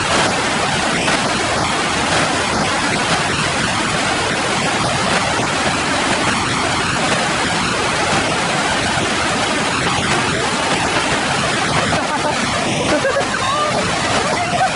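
Steady, loud rushing noise without a break.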